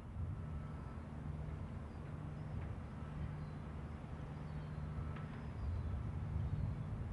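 Outdoor ambience: a steady low rumble with a few faint, high bird chirps over it.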